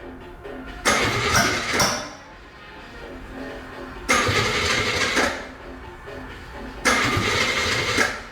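Freshly rebuilt Chevrolet 283 small-block V8 on its first start, with fuel squirted in by hand, firing in three loud bursts of about a second each, a few seconds apart.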